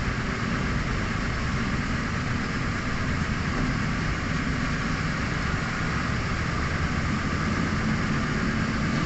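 A steady mechanical drone with a hiss on top, unchanging throughout, like a running engine or machine nearby.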